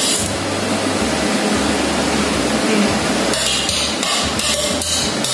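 Steady hissing noise from the open oven and its hot tray of basted chicken drumsticks, with a low hum underneath. A few short brushy strokes come through in the second half as the basting brush works the marinade bowl and the chicken.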